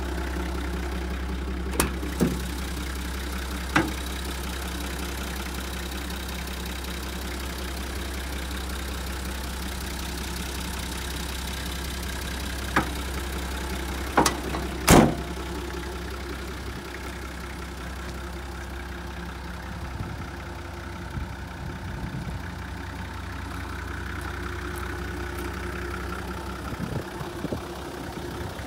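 Nissan TD42 4.2-litre straight-six diesel idling steadily with an even low rumble. A few sharp clicks and knocks sound over it, the loudest pair about 14 to 15 seconds in.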